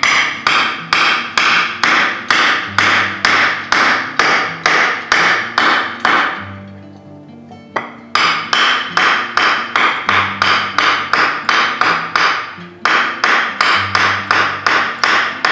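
Steel hammer striking a wooden block to tap a freshly oiled hydraulic lift piston into the three-point hitch cylinder of a Case 830 tractor. Sharp, evenly paced blows, about three a second, pausing for a second or two about six seconds in.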